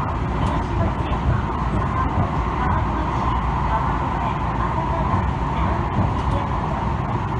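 Tobu Tojo Line Kawagoe Express electric train running at speed, heard from inside the car: a steady rumble of wheels on rail and running gear.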